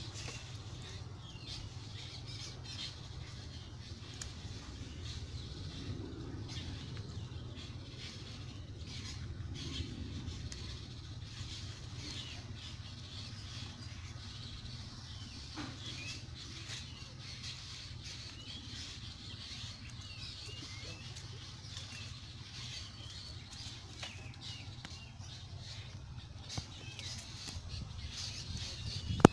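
Outdoor ambience: small birds chirping over a steady low rumble, with scattered small clicks and rustles.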